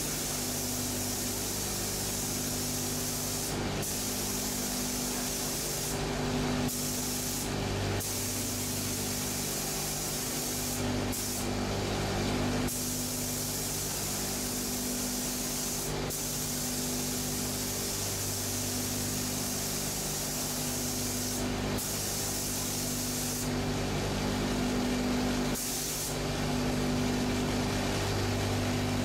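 Pneumatic gravity-feed spray gun hissing as it sprays, cut by short breaks every few seconds where the trigger is released. A steady low hum runs underneath.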